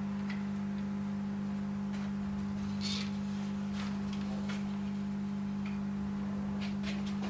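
Band saw fitted with a paper blade, running: a steady motor hum with scattered light ticks.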